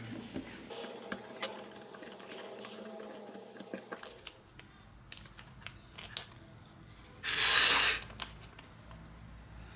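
Small clicks and scrapes of a pointed tool picking at adhesive on a tablet's frame, then, about seven seconds in, a loud rustle of a thin plastic film sheet being handled for about a second.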